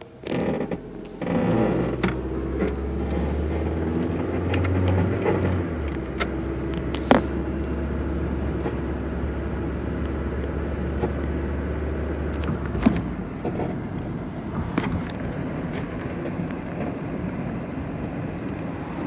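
2002 Honda Accord EX making its loud turning noise: a low drone with a wavering, pitched groan over it for the first few seconds. A sharp knock comes about seven seconds in and another near thirteen seconds, where the drone stops. One shop blamed the struts; someone else blamed worn bushings.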